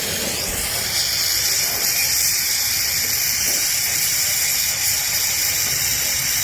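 Gas welding torch flame hissing steadily, strongest at the high end, during aluminium welding to seal an oil leak at a 70cc motorcycle's oil nut.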